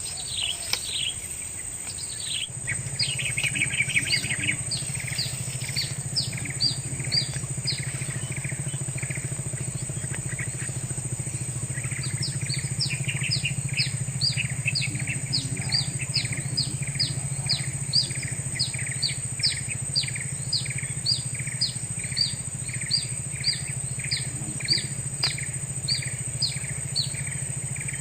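A bird calling a short descending chirp over and over, about two a second, over a steady high-pitched whine and a low steady hum.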